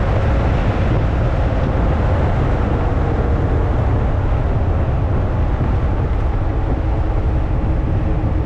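Ferrari California's 4.3-litre V8 and tyres at a steady highway cruise: a continuous low drone of engine, road and wind noise with no change in speed.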